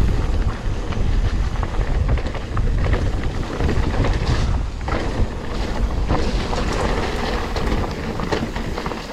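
Mountain bike riding fast down wet, rooty singletrack: steady wind rush on the microphone, with tyre noise and short clatters and knocks as the bike rolls over roots and rough ground.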